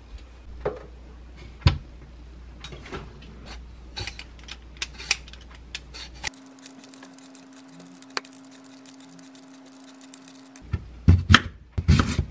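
Vegetable peeler scraping the skin off a sweet potato in short repeated strokes. About eleven seconds in, a kitchen knife cuts through the sweet potato and knocks on the wooden cutting board several times, loudly.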